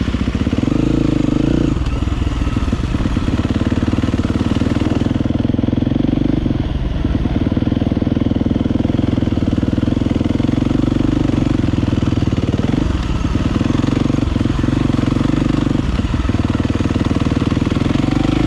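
Dirt bike engine running at a steady, high throttle, a constant loud drone with brief small dips in revs a few times.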